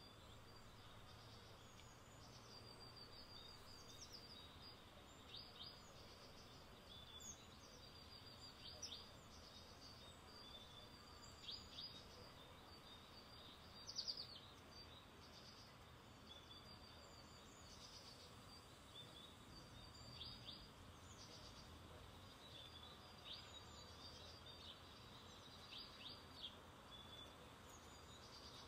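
Near silence with faint bird chirps: short, high notes recurring every second or two, the strongest about halfway through, over a faint low hum.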